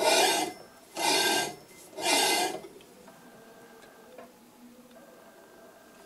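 A cleaver's edge rasping dry against a knife sharpener's grinding wheel turned by hand: three even scrapes about a second apart, then only faint handling. These are dry test passes with the motor off, to see where on the bevel the wheel is cutting before setting the tool bar height.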